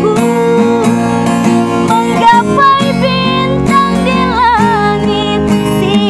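A woman sings a high, melismatic vocal line with cengkok ornaments over acoustic guitar accompaniment. The pitch waves through an ornamented run about four and a half seconds in and again near the end.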